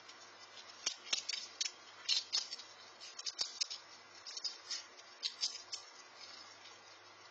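Squirrel close to the microphone cracking and chewing peanuts: irregular sharp crunching clicks in quick clusters, with short pauses between.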